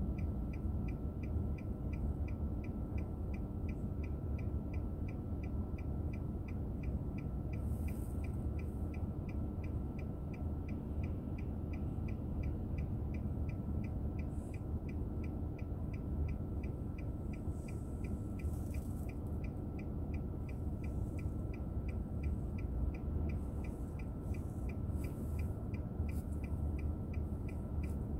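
Steady low rumble of a car in motion, heard inside the cabin through a dashcam microphone, with a faint steady whine and a rapid, even ticking underneath.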